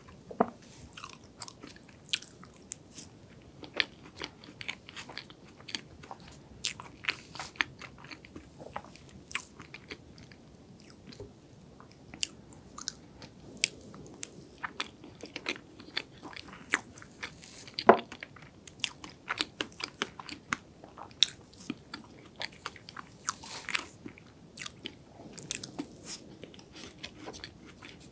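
Close-miked eating of soft chocolate and strawberry layer cake: wet chewing and lip smacking, with many sharp irregular clicks, some from the fork tapping the plate.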